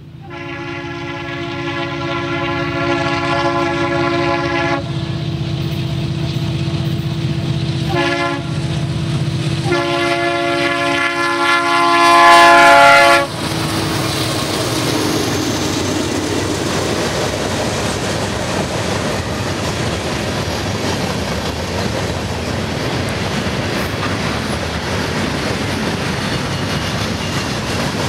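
Norfolk Southern diesel freight locomotives blowing their multi-note air horn for the grade crossing: a long blast, a short one about eight seconds in, and a final long blast that is loudest as the locomotives reach the crossing, cut off suddenly about halfway through. After that the train rolls past with steady wheel noise and clickety-clack over the rail joints.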